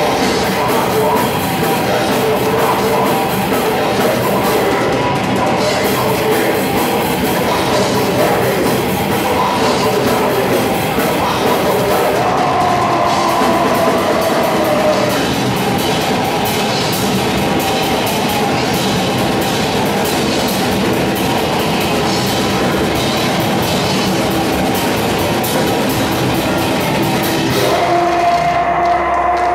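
Live heavy metal band playing loud and dense, with fast drumming, distorted guitar and a vocalist on microphone, heard through the room. Near the end the drums drop out and a single held note rings on.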